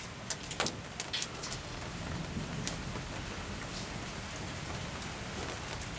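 Steady rain with the last of a hailstorm, falling on lawn and patio, with a few sharp ticks of small hailstones striking in the first second and a half.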